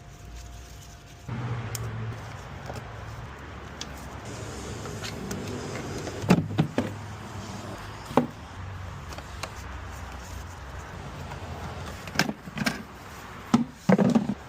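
Sharp plastic clicks and knocks, several in a row and loudest in the second half, from front grilles being worked loose and their tabs unclipped. A steady low hum runs underneath.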